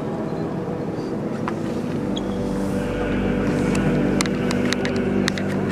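Steady, echoing hubbub of a large crowd inside a vast stone basilica, with a constant low hum and a few sharp clicks near the end.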